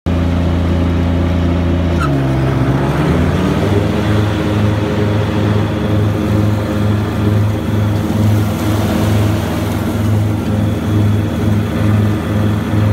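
Grasshopper 325D mower's diesel engine running with its Power Vac blower. About two seconds in there is a click and the engine note dips and recovers as load comes on. The engine then settles into a rhythmic throb of about two pulses a second, with the blower's rushing noise over it.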